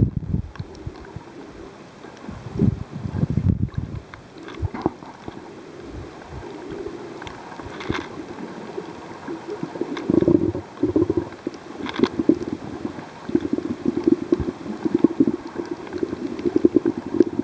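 Muffled sloshing and rumbling of water heard through a camera held underwater, in uneven low surges that turn busier and fluttering in the second half.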